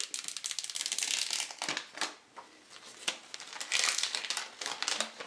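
Thin clear plastic shrink wrap crinkling and crackling as it is pulled open by its tear tab and peeled off a phone box, in two busy spells with a quieter moment in the middle.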